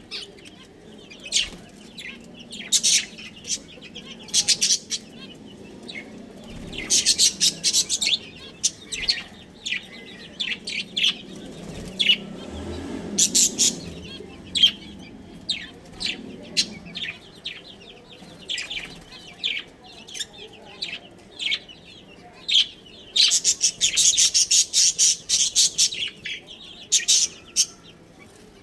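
Budgerigars chirping and chattering: rapid, sharp high chirps in irregular bursts, with the densest runs of chatter about a quarter of the way in and again towards the end.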